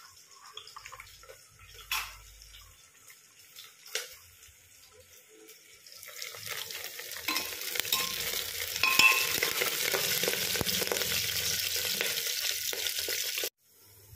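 Peanuts frying in hot oil in an aluminium pressure cooker, sizzling loudly as a steel spoon stirs them; the sizzle builds up about halfway through and cuts off suddenly near the end. Before it, a few light knocks.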